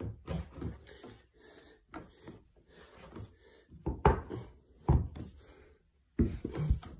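A threshold bar being pressed down by hand onto its fixings: rubbing and irregular dull knocks, the loudest about four and five seconds in and again near the end.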